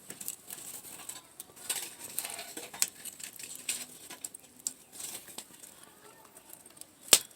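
Wood campfire crackling, with irregular small pops and one loud sharp pop near the end.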